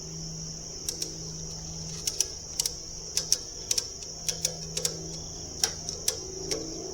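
Ratchet strap being cranked tight, its ratchet clicking in quick singles and pairs, about two or three a second, as it draws the sawmill's bunks together. Crickets chirp steadily in the background.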